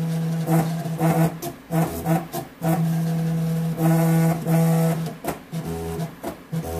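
Stepper motors of a small belt-driven CNC plotter table running a plotted path: a steady pitched whine for each move, starting and stopping every second or so with short pauses, with shorter moves at changing pitch near the end. The steppers are 12-volt unipolar motors driven as bipolar on a low-voltage supply.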